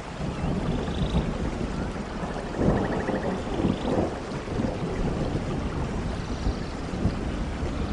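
Steady rain with a long rolling rumble of thunder, swelling loudest about three seconds in.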